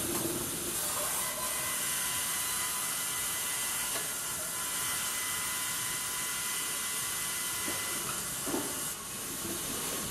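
Baker 40 hp electric band resaw running as boards feed through it: a steady high hiss with a constant whine from the blade and machinery. A couple of light knocks come about four seconds in and again about eight and a half seconds in.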